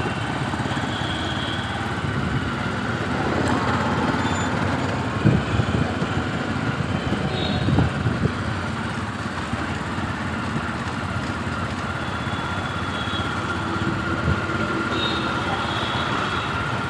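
Motorbike running steadily on the road, with wind rumbling on the microphone and a faint steady whine. Two short knocks, about five and eight seconds in, stand out above it.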